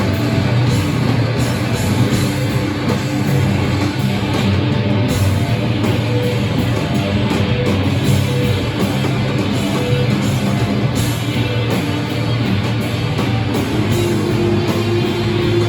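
Live rock band playing loudly: electric guitar and drums in a dense, continuous wall of sound.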